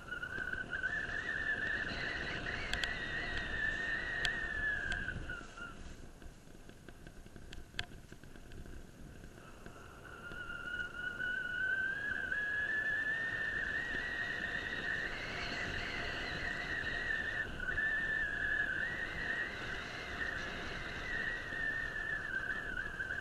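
A mountain bike coasting down a gravel forest road: tyres rumbling on the gravel under a steady high whine from the bike, whose pitch slowly rises and falls. The whine drops out for a few seconds about a third of the way through, then returns, with a few sharp ticks from the bike along the way.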